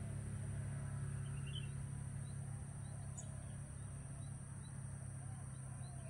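Steady low rumble of distant traffic, with faint, short high bird chirps scattered through it and a constant high-pitched hiss.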